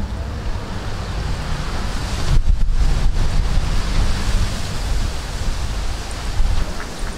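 Wind buffeting the microphone: a steady rushing noise with a heavy low rumble, whose hiss briefly drops out twice between about two and a half and three seconds in.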